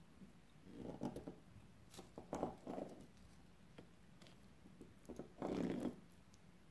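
A knife cutting through a baked blueberry pie, crunching through the crust and scraping against the base in three short strokes, the last the loudest, with a few light clicks between.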